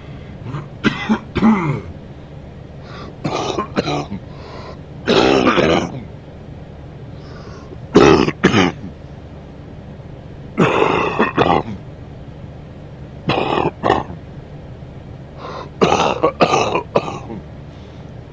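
A man coughing and clearing his throat in repeated short fits of two or three coughs each, about seven fits, one every two to three seconds.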